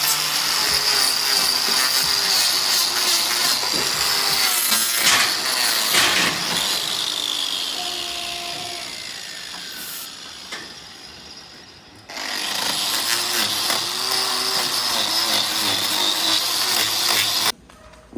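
Handheld power tool running with a steady high whine. About six seconds in it winds down, its pitch and loudness falling over several seconds. It starts again abruptly at about twelve seconds and cuts off sharply near the end.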